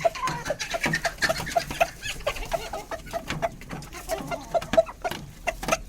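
Silkie chickens clucking softly in short, quickly repeated notes, amid many sharp taps like beaks pecking at food.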